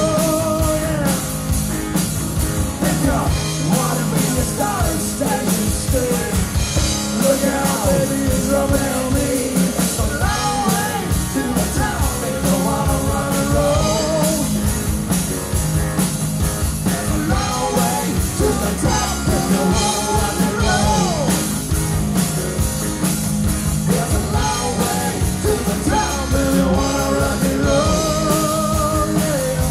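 Live rock band playing: a male lead vocal singing over electric guitar, bass guitar and a drum kit.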